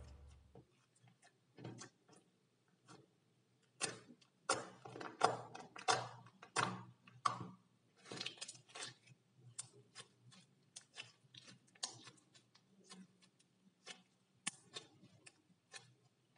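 White toothpaste slime being squeezed and kneaded by hand, giving off quiet, irregular clicks and small pops that come thickest between about four and nine seconds in.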